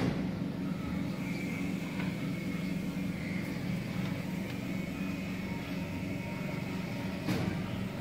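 Outdoor city ambience: a steady low hum of engines and traffic, with a short knock near the end.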